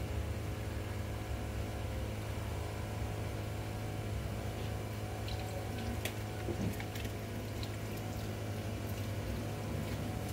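Water poured from a plastic bowl over wet hair and splashing into a salon backwash sink, over a steady low hum. A few light knocks come about six seconds in.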